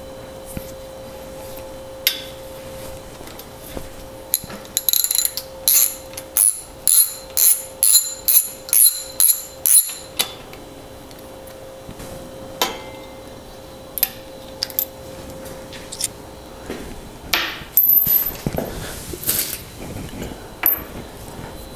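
Socket ratchet clicking in a run of about a dozen metallic clicks, roughly two a second, as a bicycle's non-drive-side crank bolt is unscrewed. Then scattered metal clinks and clunks of the bolt, washer and tools being handled.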